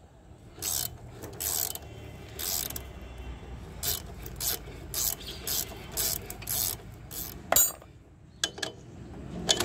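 Ratcheting ring spanner clicking through a run of short back-and-forth strokes, roughly one every half second to a second, as it loosens the mount nut of a motorcycle rear shock absorber. A sharper metallic click comes about seven and a half seconds in.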